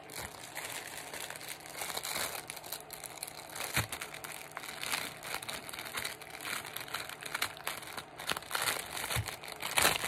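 Clear plastic packaging bag crinkling as it is handled and pulled open, with a couple of soft bumps against the table.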